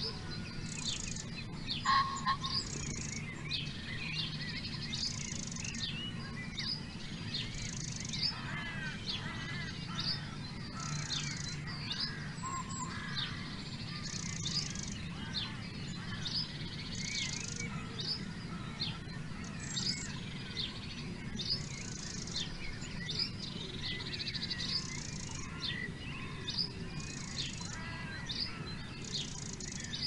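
Small songbirds chirping over and over, many short high chirps, with a short buzzy call repeating every couple of seconds. A low steady hum runs underneath.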